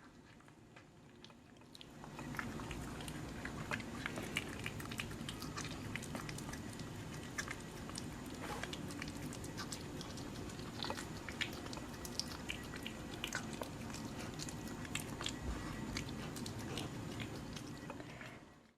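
An animal chewing and crunching, with many small irregular clicks. It starts about two seconds in and cuts off suddenly at the end.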